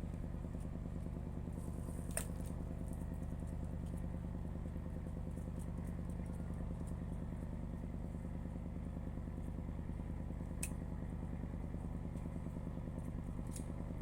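An engine running steadily at a constant speed, with two sharp clicks, about two seconds in and again near eleven seconds.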